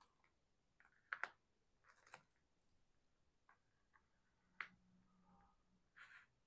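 Faint clicks and taps of small diamond-painted butterfly pendants being picked up and set down on a tabletop, a few scattered ticks with the loudest a quick double click about a second in.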